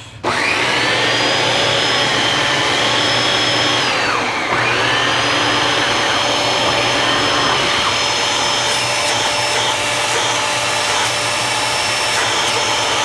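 Dyson DC17 upright vacuum cleaner switched on for a test run after repair, its motor starting suddenly and running steadily with a high whine. About four seconds in, the pitch sags briefly and then recovers.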